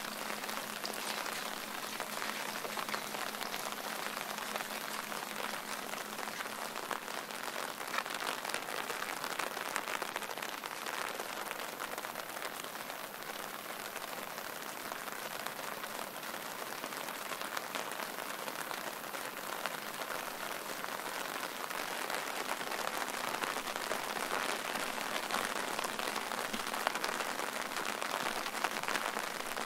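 Steady rain falling on surfaces: a continuous hiss with many small drop ticks, growing a little louder over the last third.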